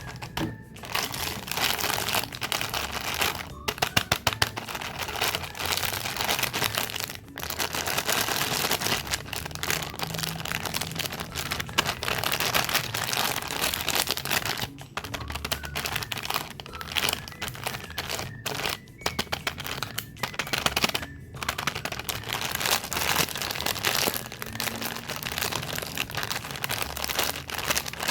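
Plastic snack wrappers crinkling and crackling as packaged cakes and cookies are handled and unwrapped, with a few short pauses.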